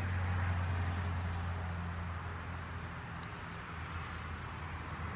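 A steady low hum under an even background hiss, with no clear event.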